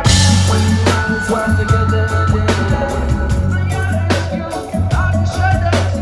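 Live rock band playing: electric guitar, drum kit and a deep bass line, opening on a cymbal crash with regular drum hits throughout.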